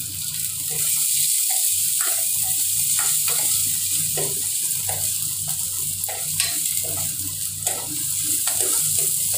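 Chopped onions sizzling in hot sesame oil in an enamel pot while they are sautéed, with a steel ladle stirring and scraping against the pot in short, irregular strokes.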